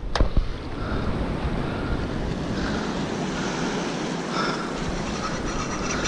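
Waves washing over a shallow reef, with wind buffeting the microphone. A single sharp click sounds just after the start.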